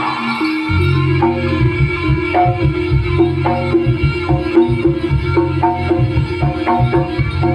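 Live jaranan ensemble music: hand-drum strokes over quick, repeated tuned-percussion notes, with a steady low tone coming in about a second in.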